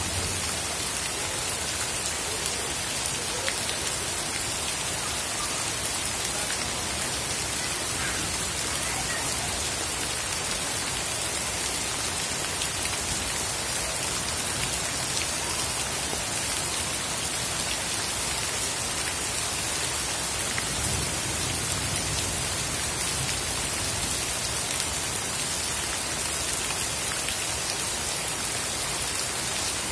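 Heavy rain pouring steadily onto a flooded path, a constant dense hiss of drops striking standing water.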